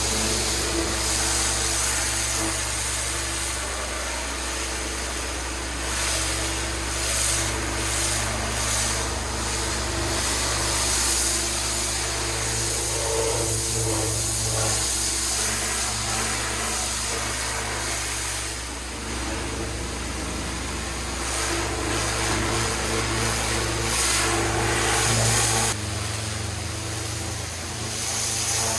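Engine-driven pressure washer running steadily, its water jet hissing as it blasts stone paving. The hiss swells and fades as the jet moves, and part of the low engine hum drops away near the end.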